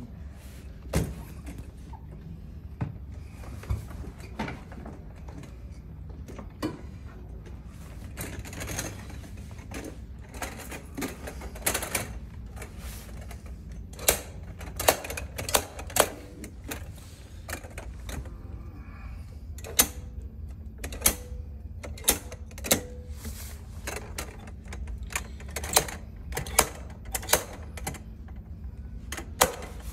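Irregular metallic clicks and knocks as the black metal frame and legs of a portable height-adjustable table are handled and fitted or taken apart, growing busier and louder about halfway through.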